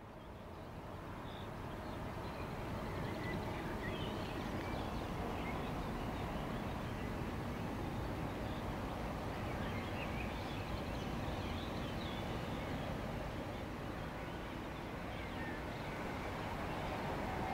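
Steady distant rumble of a train and road traffic across the river, with faint scattered bird chirps over it.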